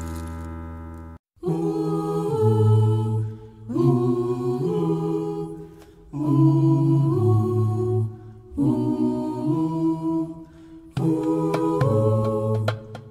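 A held chord fades and cuts off about a second in. Then a choir with low voices sings unaccompanied, in five short chant-like phrases of about two seconds each.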